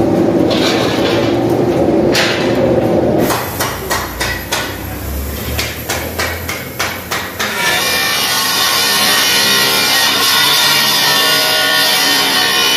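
About a dozen irregular hammer blows on steel, followed from about eight seconds in by an angle grinder with a flap disc running steadily across a steel plate.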